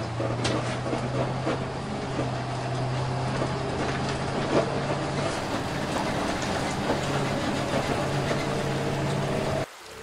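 Interior of a moving bus: a steady engine hum under road noise, with scattered rattles and knocks from the body. It cuts off suddenly near the end.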